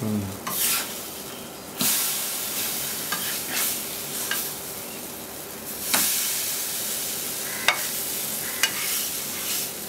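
Thick batter frying on a flat tawa, sizzling steadily while a steel spatula cuts and turns it over. The sizzle surges loudly about two seconds in and again about six seconds in, and the spatula clicks sharply against the pan a few times near the end.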